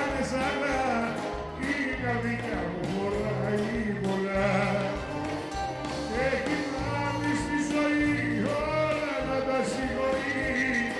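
Male singer singing live into a microphone, with long held notes, over band accompaniment of bouzouki, drums and low bass notes.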